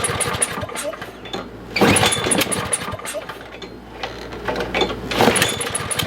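Craftsman push mower engine being pull-started over and over, firing briefly on each pull but not staying running. It comes in three surges, at the start, about two seconds in and about five seconds in. The spark plug was found soaked with fuel just before.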